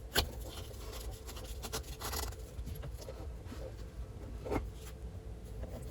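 Faint rubbing and scraping of plumbing parts being handled, with a couple of small clicks: a hose weight being fitted onto a kitchen faucet's pull-down sprayer hose under the sink. A faint steady hum sits underneath.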